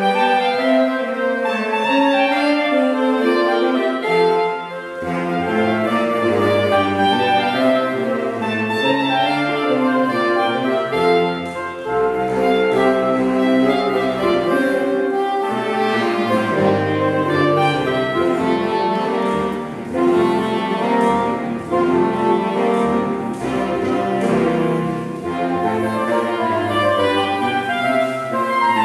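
Saxophone quartet of soprano, alto, tenor and baritone saxophones playing a piece together in harmony, with a low bass line coming in about five seconds in.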